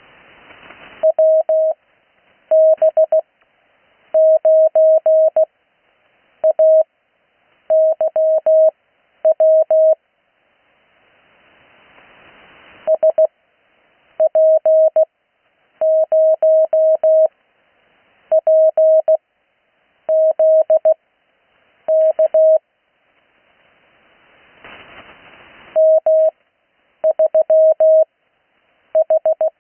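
Morse code (CW) sent as a single steady mid-pitched tone keyed in quick dots and dashes, each character followed by a long gap in Farnsworth spacing. It is heard over the 80-metre amateur band, and radio hiss swells up in the longer pauses between characters.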